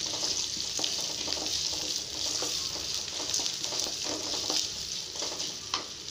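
Chopped shallots, curry leaves and chillies sizzling in hot oil in a stainless-steel kadai while being sautéed. A wooden spatula stirs them, scraping and knocking against the pan again and again, with one sharper knock near the end.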